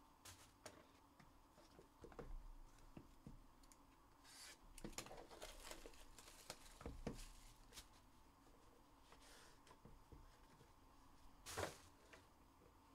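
Faint handling of cardboard trading-card boxes: light taps, rustles and scrapes as the boxes are slid and set down on the table, with a short, sharper scrape about 11.5 s in.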